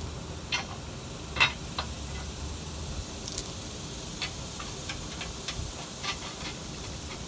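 Scattered small metallic clicks and clinks of bolts, washers and nuts being handled and fitted by hand to a steel front receiver hitch bracket, the loudest clink about a second and a half in.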